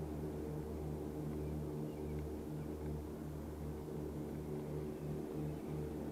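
Steady low hum of a running motor, even throughout.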